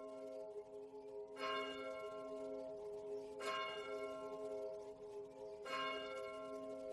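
Bell-like chimes opening a music track: a ringing chord struck three times, about two seconds apart, each note ringing on into the next.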